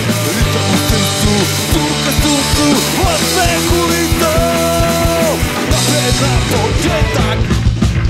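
Punk-rock band playing live on stage: distorted electric guitars, bass and a drum kit with a steady beat.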